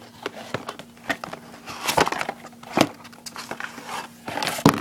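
Cardboard and plastic packaging being handled as hands dig through a product box: scattered clicks, rustles and short scrapes, with the loudest rustles about two seconds in and near the end.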